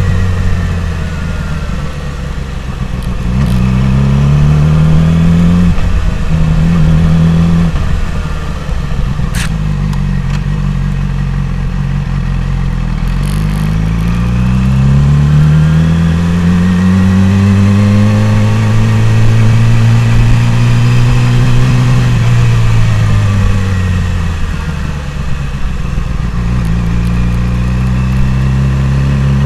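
Yamaha R6 (RJ15) 600 cc inline-four engine heard from the rider's seat, pulling at low speed through the gears: its pitch rises, holds and drops again several times, with a long climb and steady hold in the middle and a drop a few seconds before the end. A single sharp click about nine seconds in.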